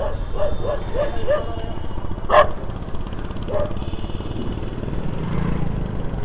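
A dog barking about five times in quick succession in the first second and a half, and once more later, over the steady wind and road rumble of a moving scooter. A single sharp click comes a little over two seconds in.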